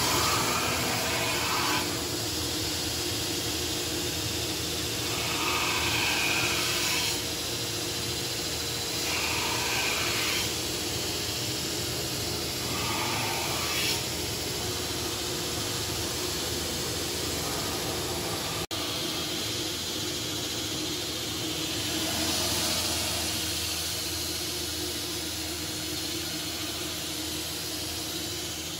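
Belt grinder motor running steadily while a pattern-welded steel spear head is pressed to the belt in several short passes of one to two seconds each, mostly in the first half. Each pass adds a grinding hiss as rough material is taken off the blade.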